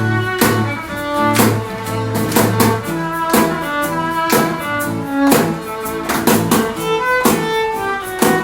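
Band music: an instrumental passage with a steady beat and no singing.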